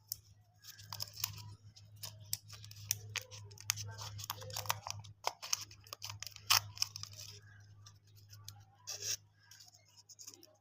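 Plastic lollipop wrappers being handled and torn open: dense crinkling with many sharp crackles and clicks.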